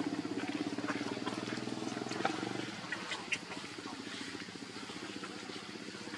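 An engine running with a fast, even low throb that fades out about two and a half seconds in, with a few short high squeaks after it.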